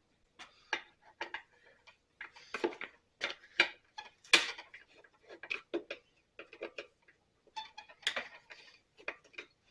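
Irregular clicks and small plastic rattles from the STIHL BR 450 backpack blower's recoil starter being worked by hand, with no engine running. The recoil is not catching: dirt has got into it.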